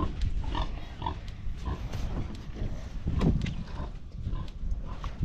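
Pigs grunting: a run of short grunts, roughly two a second.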